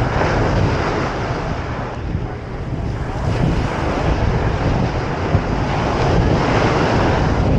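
Ocean surf washing onto the beach, swelling twice, with wind buffeting the microphone.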